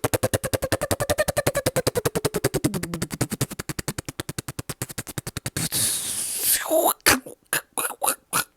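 A man's mouth-made sound effect: a fast pulsing buzz, about twelve pulses a second, whose pitch rises and then falls. About five and a half seconds in it breaks into a loud hiss, then a string of short pops.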